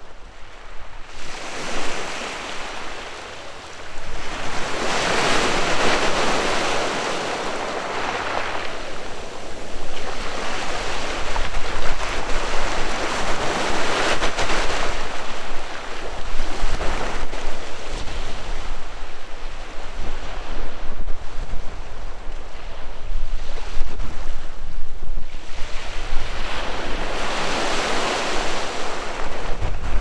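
Waves breaking and washing on a pebble beach, swelling and falling back in long surges every several seconds, with wind rumbling on the microphone.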